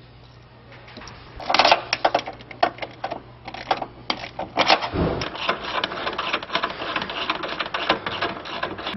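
Socket ratchet clicking in rapid runs as it runs a nut down onto the heat shield's mounting bracket, starting about a second and a half in.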